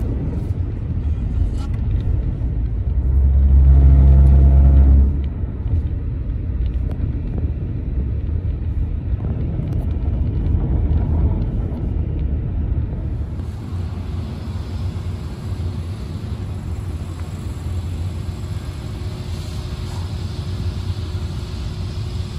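Steady low road rumble and hiss of a moving car, heard from inside the cabin while chasing a train. About three seconds in a louder low hum with a few pitched lines swells for about two seconds, and from about halfway the hiss grows brighter.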